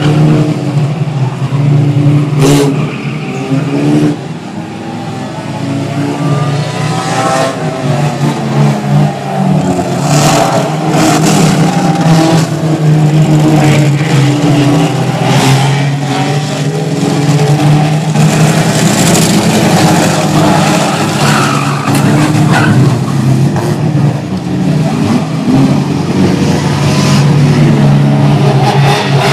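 Many banger race cars' engines running together, rising and falling as they rev around the oval, with skidding tyres and scattered sharp bangs.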